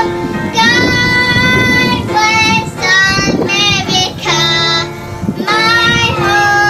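A young girl singing into a microphone, phrases of long held notes with short pauses for breath between them.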